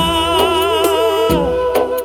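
Telugu Christian devotional song music: a wavering melody line over a steady beat of about two strokes a second.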